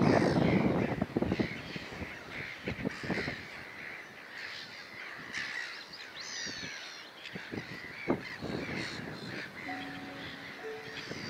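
Many birds calling together with harsh, crow-like cawing calls repeated throughout. A loud low rushing noise fills the first second.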